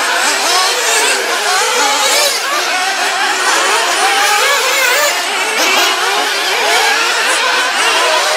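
Several radio-controlled off-road racing buggies running together, their overlapping high-pitched motor notes constantly rising and falling as the throttles open and close.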